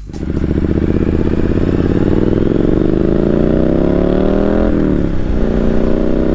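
Triumph motorcycle engine accelerating in gear, its pitch rising steadily for about four and a half seconds, then dropping sharply at an upshift and pulling on in the next gear.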